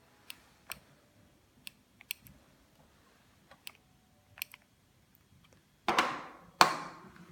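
Scattered light plastic clicks from handling the wireless doorbell units and pressing their buttons. About six seconds in come two louder sharp sounds, half a second apart, each ringing on briefly.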